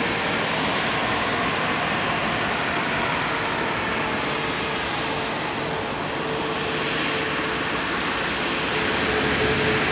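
Airbus A340-600's four Rolls-Royce Trent 500 turbofans running at taxi power as the airliner rolls along the taxiway. The sound is a steady jet rumble and hiss with a steady whine, growing a little louder near the end.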